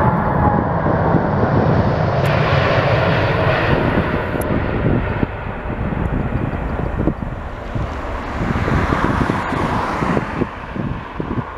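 Two Rolls-Royce Trent 1000 turbofans of a Boeing 787-8 at takeoff power as the airliner rolls past, lifts off and climbs away. A whine falls in pitch within the first second, and the jet noise grows fainter near the end.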